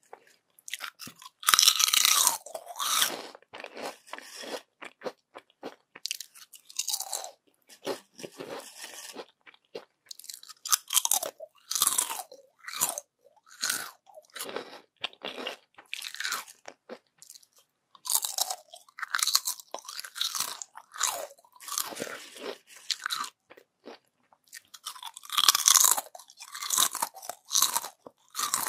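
Crispy yam chips crunching and being chewed close to the microphone: loud bites about two seconds in, around twelve seconds and near the end, with softer chewing crunches between.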